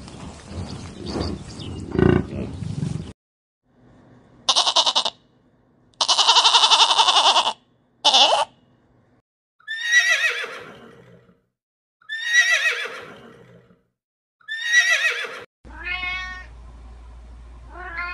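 A low, rough animal sound with a knock about two seconds in, then a horse whinnying over and over: three loud pulsing calls, then three long calls that fall in pitch. Near the end a domestic cat meows twice.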